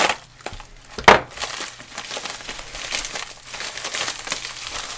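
A padded mailer being torn open by hand, with two sharp rips about a second apart. Then plastic wrapping crinkles and rustles steadily as the contents are pulled out.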